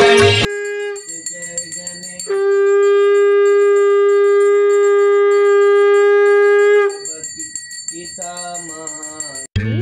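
A conch shell (shankh) blown in one long steady note for about four and a half seconds, with fainter, wavering shorter notes before and after it. A brass hand bell rings throughout as part of the puja.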